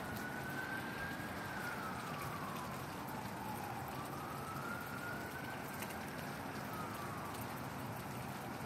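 An emergency vehicle siren wails faintly, rising and falling slowly twice and fading out near the end, over the steady hiss of falling rain.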